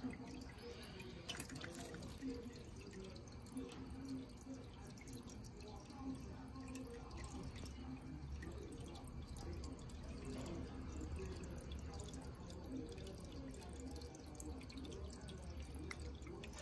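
Water dripping and trickling into an aquarium, over a low steady hum that grows stronger about halfway through.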